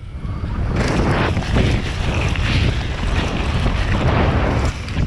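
Wind rushing over an action camera's microphone as a mountain bike descends fast, mixed with the tyres rolling and crunching over a gravel trail.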